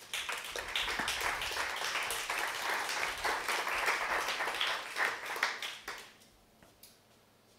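Audience applauding, a dense patter of many hands clapping that starts right away and dies away about six seconds in.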